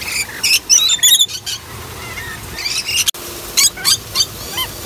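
Rainbow lorikeets calling: shrill, high-pitched screeching chatter in quick clusters of calls, with brief gaps between them.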